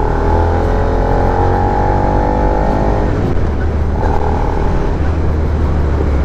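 Suzuki SV650's 645cc V-twin engine running while the bike is ridden, its note rising slightly over the first three seconds and then dropping back, over a steady low rumble.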